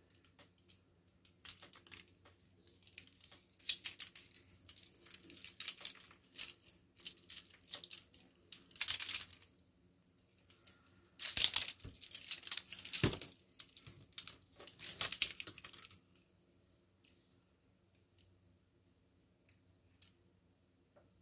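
Steel handcuffs clinking and rattling against each other as cuffs are worked off a wrist stacked with them, in irregular bursts of metallic clicks. It goes nearly quiet about 16 seconds in, leaving only a few faint ticks.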